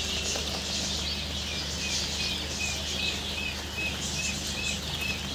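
A brooder full of guinea fowl keets peeping. From about a second and a half in, one keet's short chirp repeats two or three times a second over the rest of the flock. A steady low hum runs underneath.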